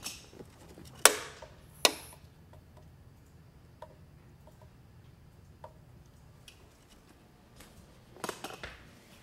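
Knocks and clicks from handling an air compressor's pressure regulator while it is turned up: two loud sharp knocks about a second in, less than a second apart, then a few faint ticks and a quick cluster of clicks near the end, over a low steady hum.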